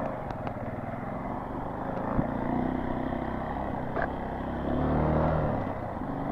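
Motorcycle engine running while riding over rough ground, the revs swelling briefly about five seconds in, with a sharp knock about two seconds in and a few light clicks.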